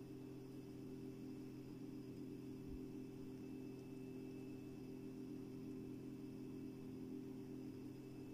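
Faint steady low hum with a thin high whine above it: electrical or appliance hum in room tone.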